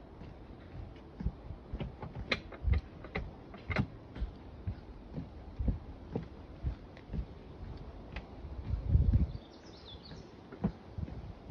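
Footsteps of a person walking at a steady pace, about two steps a second, with a brief louder low rumble about nine seconds in and a short high chirp just after it.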